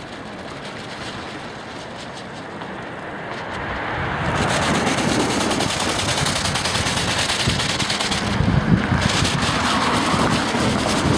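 Wind gusting over the microphone with a dense, rapid crackling rattle, growing louder about four seconds in.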